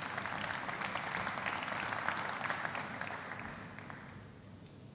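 Audience applauding, the clapping fading away over the last second or two.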